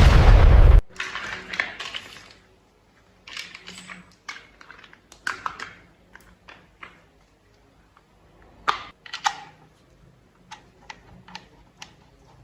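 Plastic toy vehicle parts being handled and fitted together: scattered small clicks and taps, with two louder clicks about three-quarters of the way through. A loud rushing noise cuts off suddenly within the first second.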